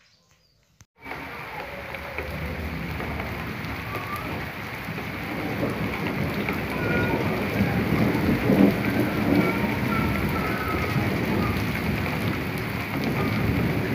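Heavy rain pouring steadily onto wet ground and puddles, starting about a second in and swelling a little around the middle.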